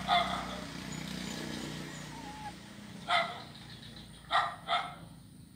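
A dog barking in short, sharp barks: two right at the start, one about three seconds in, and two more close together near the end.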